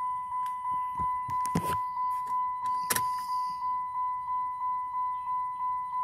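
A 2009 Dodge Charger's dashboard warning chime sounding over and over, a single high tone about three times a second, while the car sits with the ignition on and will not start. A few sharp clicks and knocks come in the first three seconds.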